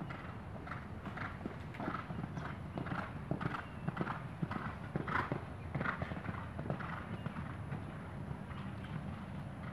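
Hoofbeats of a horse cantering on sand arena footing, in an even rhythm. They grow louder through the middle as the horse comes near, then fade near the end.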